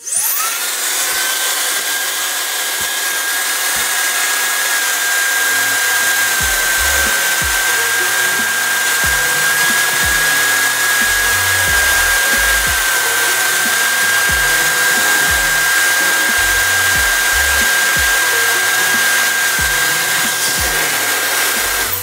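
MOOSOO MH10 high-speed hair dryer switched on. Its digital motor spins up with a quick rising whine, then runs steadily: a high whine over a loud rush of air, a little bit noisy.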